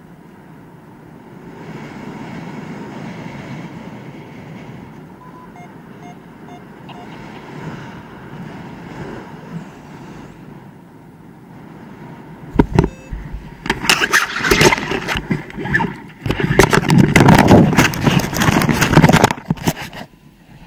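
Wind rushing over the camera microphone during a low paraglider flight. In the second half it turns loud, with dense crackling and knocking as the pilot touches down on snow and the wing comes down.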